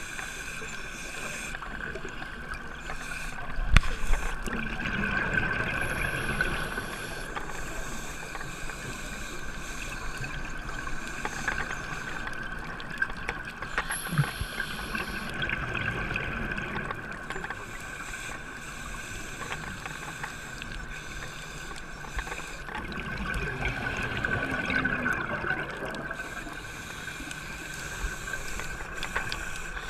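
Underwater sound through a dive camera's housing: a scuba diver's exhaled bubbles gurgle up in three swells, about every nine to ten seconds, over a steady hiss and hum. A short knock comes about four seconds in.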